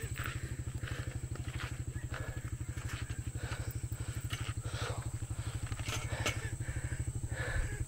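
A vehicle engine running steadily with a fast, even beat, and a couple of sharp clicks about six seconds in.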